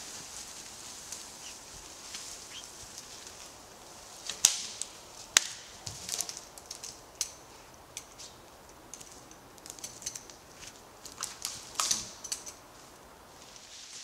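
Scattered sharp cracks and knocks of wood, branches and sticks snapping and knocking together, over a faint crackle of twigs and leaf litter. The two loudest cracks come about a second apart a little before the middle, and a quicker cluster follows near the end.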